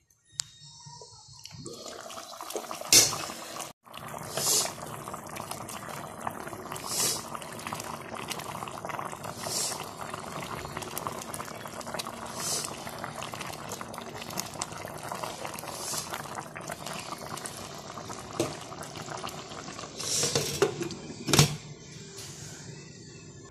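A spicy-sour fish curry (asam pedas) simmering and bubbling in a pan on the stove, a steady sizzling bubble with a brief crackle every couple of seconds. Near the end there is a sharp knock as the glass lid is set on the pan.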